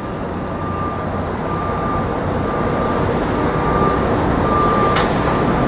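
Steady rumble of passing street traffic, slowly getting louder, with a thin steady whine.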